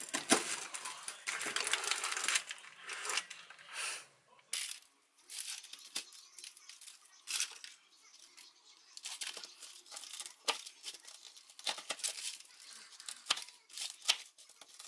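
Kitchen knife crunching through a baked oat, nut and seed cereal-bar slab on parchment paper, with the crumbly slab crackling as it is broken apart by hand. A dense crackle for the first few seconds, then separate sharp crunches and clicks.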